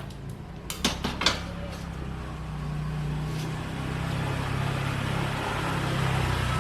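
Small 125 cc motorcycle engine idling steadily, its pitch shifting slightly and growing a little louder, with a few sharp metallic clicks about a second in.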